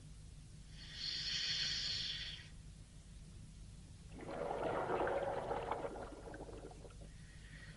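Scuba diver breathing through an aqualung regulator: a hissing inhale about a second in, then a bubbling exhale about four seconds in. A steady low hum runs underneath.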